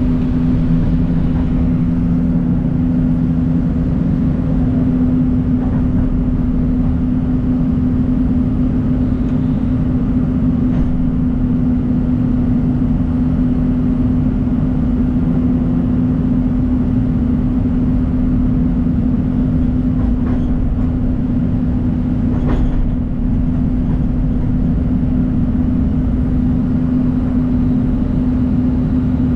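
John Deere 250G excavator's diesel engine running at a steady speed, with a couple of faint knocks in the second half.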